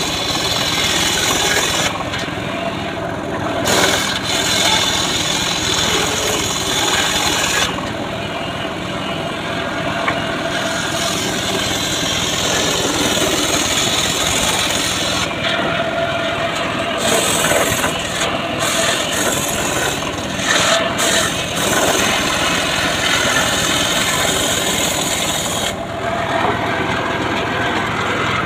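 Homemade engine-driven sawmill (gergaji srekel) sawing through a log: the engine runs steadily under the rasping hiss of the blade in the wood. The high hiss of the cut drops away briefly several times while the engine keeps running.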